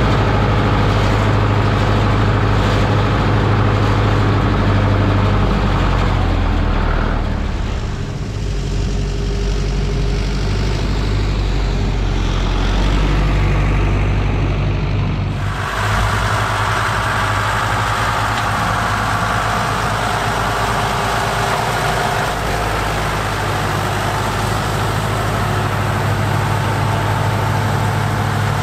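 Diesel engine of a Fortschritt ZT tractor running steadily with a deep hum as it pushes snow with a front plough blade. The sound shifts abruptly twice.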